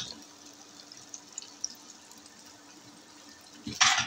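Faint bubbling of masala cooking over a high flame in a pot, with a few soft ticks and a faint steady hum; near the end, a short loud scrape of the steel ladle in the pot.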